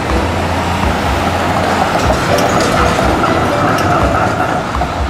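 Electric tram running on street track in city traffic, its steel wheels rolling on the rails with a few clicks and a thin wheel squeal in the middle seconds, over a steady low rumble.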